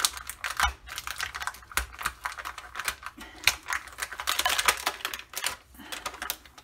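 Strong-grip vinyl transfer tape being peeled and crumpled off a clear plastic sheet: a dense run of irregular crackles and crinkles as the over-sticky tape clings. There are two dull bumps, about a second and two seconds in.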